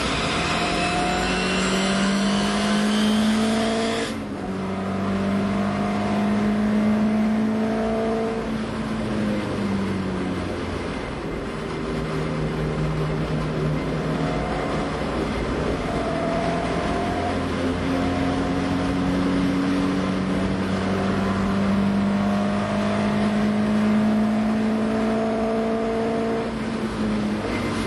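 Lotus Cortina's twin-cam four-cylinder racing engine at high revs, heard from inside the cabin, the pitch climbing slowly as it pulls, with a sharp drop about four seconds in and another about ten seconds in, then climbing and holding near the end.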